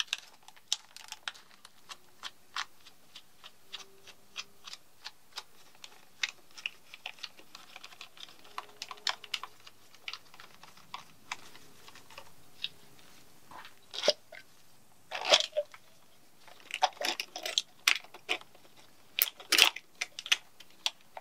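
Small plastic clicks and knocks from ignition coil connectors being unclipped and the coils pulled off a BMW M50B25 straight-six's cylinder head by hand. The clicking is irregular throughout, with louder clusters in the second half.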